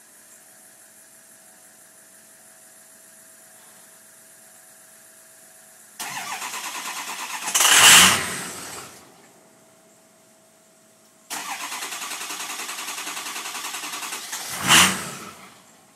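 Ford F-250 diesel engine (6.0L Power Stroke) being cranked twice, each try lasting about three to four seconds with a pulsing starter rhythm and a sharp surge near the end. Each time it falls away again without running on: a hard cold start. A faint steady hum comes before the first crank.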